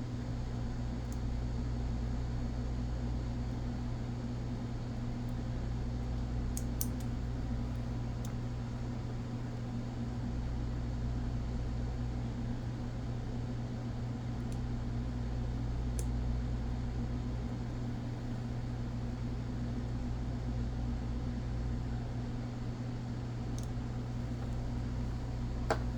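Steady low hum from a fan or motor-like background source, with a few faint, sharp little clicks scattered through it as small metal parts are handled.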